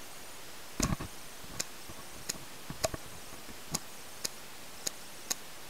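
Paintball markers firing single shots, about eight sharp pops at irregular intervals, over a steady hiss.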